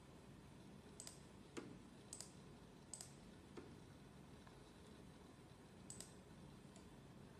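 Faint computer mouse clicks, about eight in all, some single and two quick double clicks, over near-silent room tone.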